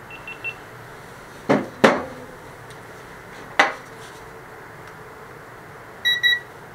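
Small stainless pot clanking against a wire grill rack: two knocks in quick succession and a third about two seconds later, each with a short metallic ring. Faint short electronic beeps come three times at the start and twice, louder, near the end.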